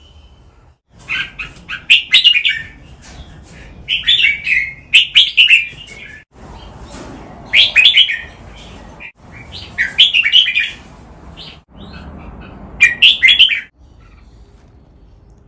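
Red-whiskered bulbuls singing: five separate bursts of short, quick song phrases, each lasting about a second or two, with pauses between them.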